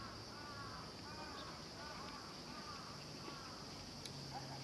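Steady, high-pitched insect drone, with a string of about six short calls that rise and fall in pitch over the first three seconds and one brief higher call near the end.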